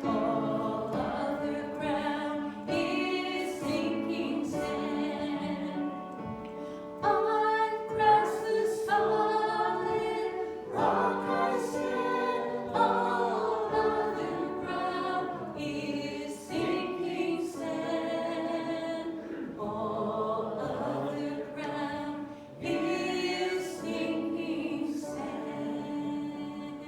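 A church congregation singing a hymn together, held sung notes moving from phrase to phrase.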